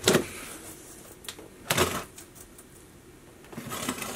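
A knife cutting the packing tape on a cardboard box: two short, sharp strokes about two seconds apart, with cardboard being handled in between.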